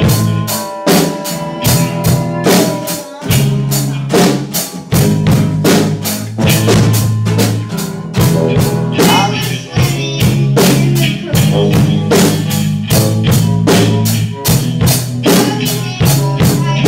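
Young students' rock band playing live: a drum kit keeps a steady beat of about four hits a second under electric guitar and sustained bass notes.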